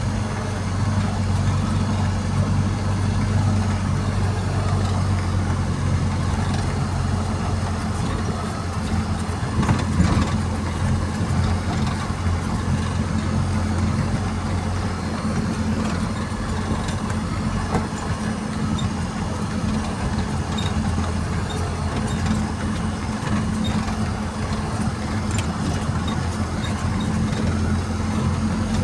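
A large engine running steadily at an even pitch, with a brief louder moment about ten seconds in.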